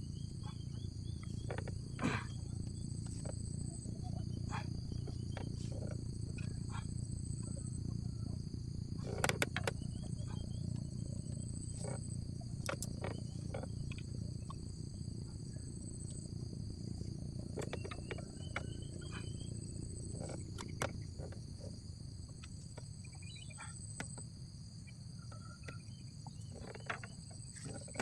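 Steady high-pitched insect chorus of crickets or cicadas, holding two unbroken buzzing tones over a low constant rumble, with scattered small clicks and short chirps.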